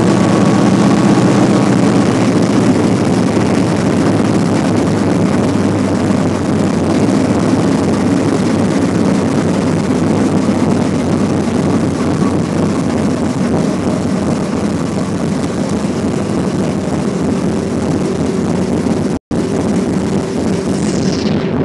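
Car engine and road noise heard from inside the cabin while driving, a steady loud drone. About nineteen seconds in, the sound cuts out completely for an instant.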